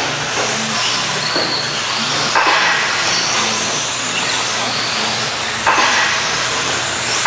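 A pack of RC stadium trucks with 13.5-turn brushless electric motors racing on a dirt track: a hiss of tyres and drivetrains with high motor whines rising and falling, swelling twice.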